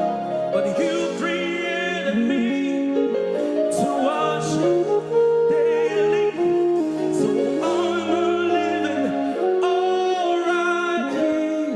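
Music: held sung notes with bending melodic lines over a steady keyboard accompaniment.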